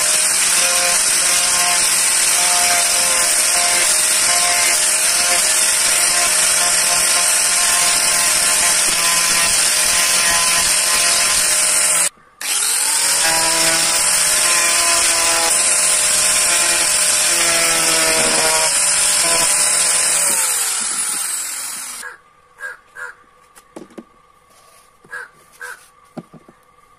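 Angle grinder with a sanding disc running at full speed and sanding the hard outer shell of a coconut, a steady whine over a gritty rasp, cutting out briefly about halfway. Near the end it winds down with a falling whine, followed by a few light knocks as the shell and tool are handled.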